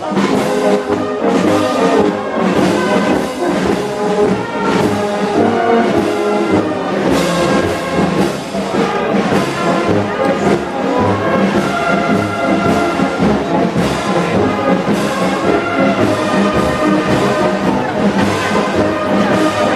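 Brass music playing, with held notes changing every second or so.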